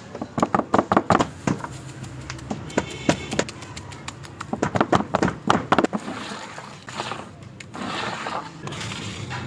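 Hands and a scraper working wet plaster in a cornice mould: two runs of quick sharp taps and clicks, then a rough scraping as a straightedge is drawn along the mould to level the plaster, from about six seconds in.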